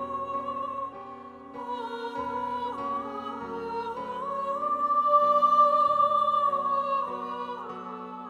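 A choir of girls singing a slow classical choral piece in long held notes, swelling to its loudest about midway and easing off toward the end.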